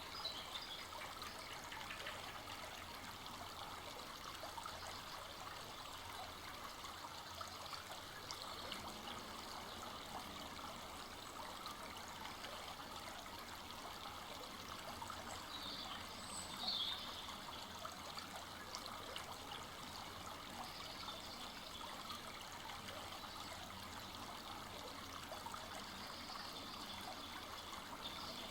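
A full-flowing forest brook running steadily, its water trickling, with one brief louder moment about two thirds of the way through.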